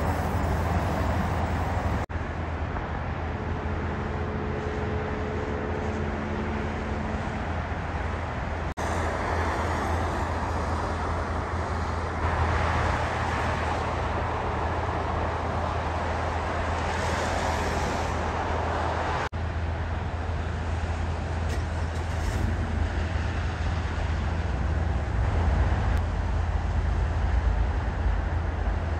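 Car driving: steady low engine and road rumble with tyre noise, rising to a louder rush of road noise for several seconds in the middle. The sound is broken by three brief dropouts.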